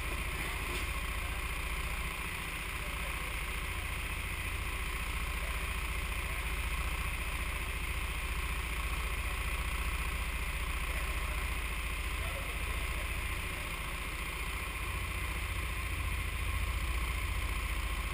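Go-kart engines idling steadily, a low rumble under an even hiss.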